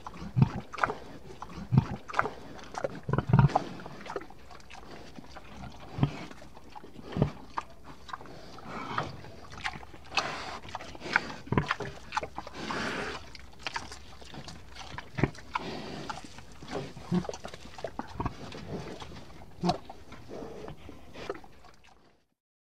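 A person's pig-like noises, imitating a dying pig, among irregular thumps of a body on foam tatami mats. The noises fade out just before the end.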